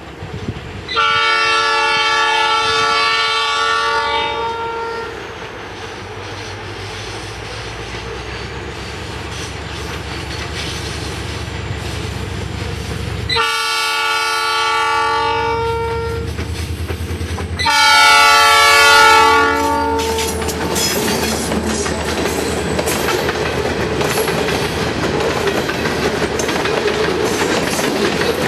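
Diesel freight locomotive sounding its air horn three long blasts for a level crossing, the last nearest and loudest, over a building engine rumble. The train then passes close by, its covered hopper cars clattering over the rails and crossing.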